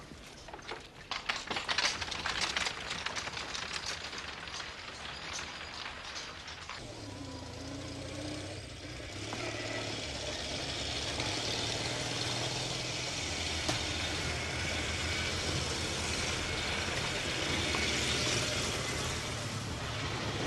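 A dense clatter of clicks and knocks for about the first seven seconds, then a sidecar motorcycle's engine running as it rides along a dirt track, growing louder as it approaches.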